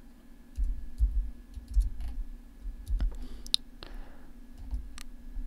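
Irregular clicks of a computer mouse and keyboard keys, a few sharp ones standing out, with soft low thumps between them.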